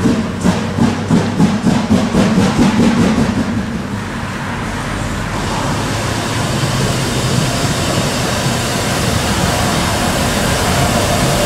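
Harzer Schmalspurbahnen class 99.72 narrow-gauge 2-10-2T steam locomotive running in, its cylinder drain cocks open. For the first four seconds it chuffs about three times a second, then settles into a steady hiss of steam.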